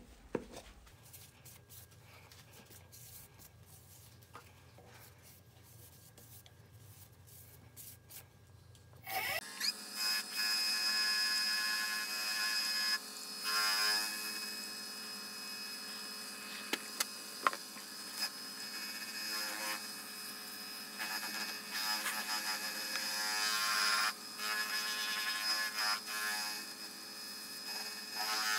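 A wood lathe starts up about nine seconds in and runs steadily with a constant whine. A paper towel rubs against the spinning wood-and-resin clock disc, polishing it with abrasive paste, and the rubbing swells and fades as the pressure changes.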